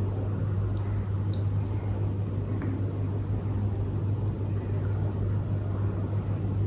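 A steady low hum runs throughout, with faint soft squishes and small clicks as a spoon scoops a yogurt-soaked dahi vada out of its tub.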